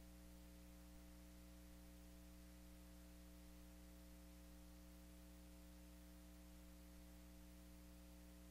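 Near silence with a steady low electrical hum and faint hiss.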